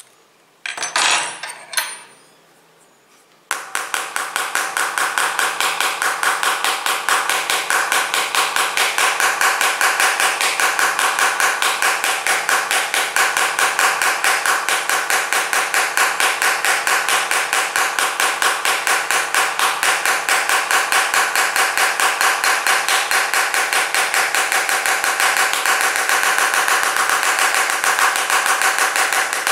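Metal spanner scraped rapidly back and forth across a smartphone's glass screen: a fast, even run of hard strokes, about five a second, with a metallic ring. It starts about three and a half seconds in, after two short scrapes about a second in.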